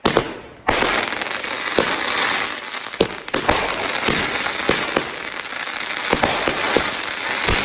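Consumer aerial fireworks going off: a bang right at the start, then from under a second in a dense, continuous crackle of bursting effects with repeated sharp bangs.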